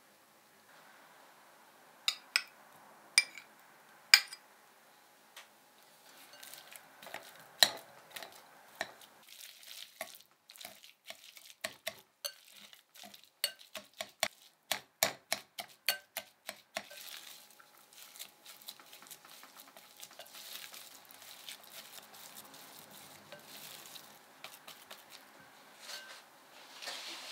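A few sharp clicks, then a wire whisk mashing baked sweet potato and butter in a glass bowl, its wires tapping the glass in quick strokes. From about midway it gives way to a softer, steadier sound of the thick mash being stirred and scraped with a silicone spatula.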